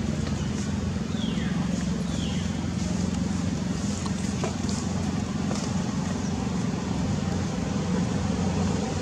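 A steady low engine hum, like a motor vehicle running nearby, with two faint falling chirps about one and a half and two and a half seconds in.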